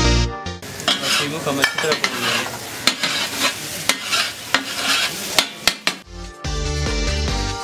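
Minced meat frying in butter on a flat tawa griddle, sizzling, while a metal spatula stirs, scrapes and clacks sharply against the griddle. Background electronic music cuts out about half a second in and comes back about six seconds in.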